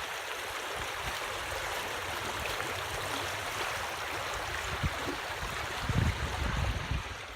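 Small stream rapids rushing steadily, with a few low thuds about six seconds in.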